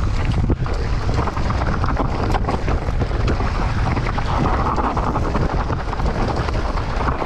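Wind buffeting the camera microphone over the running noise of a mountain bike descending a dirt trail, with many small knocks and rattles as it rolls over bumps.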